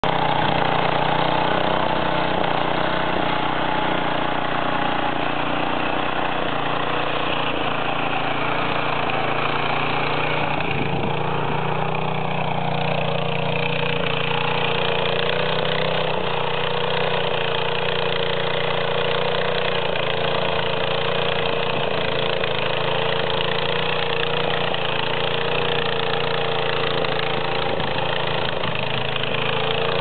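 Small engine of a walk-behind power tiller running steadily under load as it pulls a potato digger through the soil, its pitch sagging briefly about eleven seconds in.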